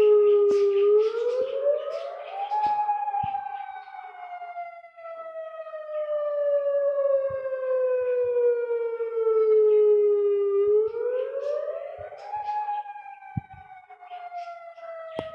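Federal Signal Modulator 4016 electronic outdoor warning siren sounding its wail tone on a test: the pitch climbs quickly over about two seconds, then slides slowly down for about eight seconds before climbing again near the end, its loudness swelling and fading.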